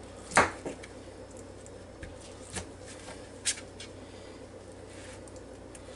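Kitchen knife slicing cooked chicken breast and knocking on a plastic cutting board: a few separate knocks, the loudest about half a second in, over a low steady hum.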